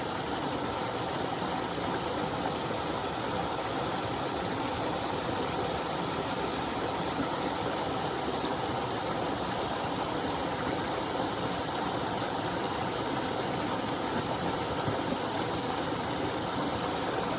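Small waterfall rushing steadily: an even, unbroken wash of falling water.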